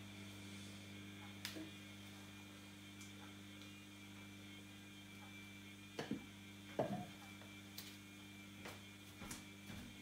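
Bosch WAA28165GB washing machine running with a steady low hum, its drum flooded with suds from too much detergent. A few short knocks and sloshes come about six and seven seconds in.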